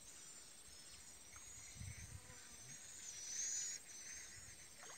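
Insects buzzing and whirring in a high, wavering whine that swells about three seconds in.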